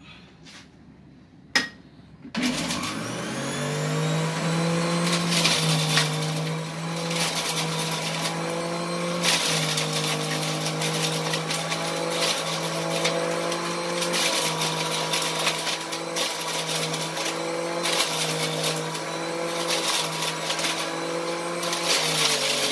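Electric juicer switched on a couple of seconds in after a few clicks, its motor spinning up in pitch to a steady hum. Grapes are fed down the chute, with a rattling, grinding noise over the motor, whose pitch dips briefly a couple of times as it takes the fruit.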